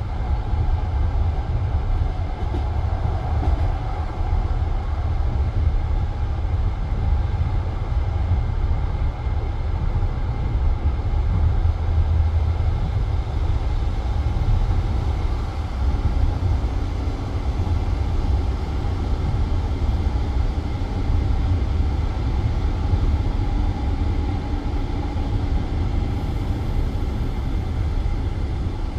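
Passenger train carriage running at speed, heard from inside: a steady low rumble of wheels on rails.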